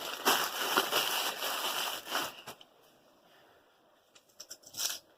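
Packaging rustling as items are handled during an unboxing: a steady rustle for about two and a half seconds, then a few faint light taps near the end.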